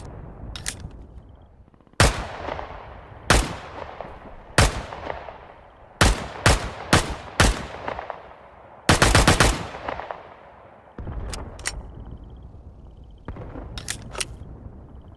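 Grease gun submachine gun firing: three single shots about a second and a half apart, then four shots in quick succession, then a short rapid burst about nine seconds in, each shot with an echoing tail. A few fainter sharp clicks follow near the end.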